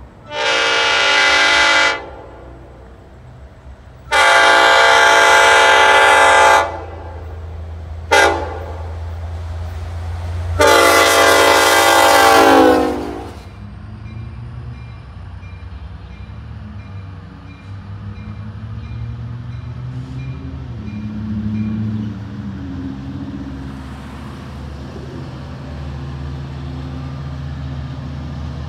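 Long Island Rail Road DM30AC diesel locomotive horn sounding the grade-crossing pattern: long, long, short, long. A steady low diesel engine rumble follows as the train approaches.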